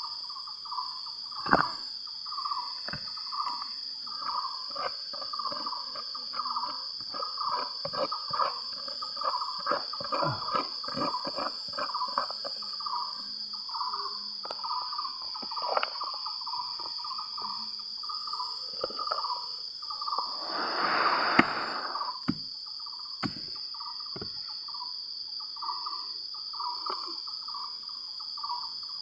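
Insects calling: a steady high-pitched buzz and a pulsing call that repeats about one and a half times a second. Over it come scattered knocks and clicks of digging and handling stones and soil, and about two-thirds of the way through a loud rushing noise that lasts just over a second.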